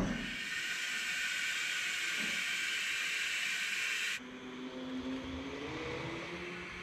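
Two-post hydraulic car lift lowering a car: a steady hiss from the lowering valve that cuts off suddenly about four seconds in, followed by a fainter steady hum.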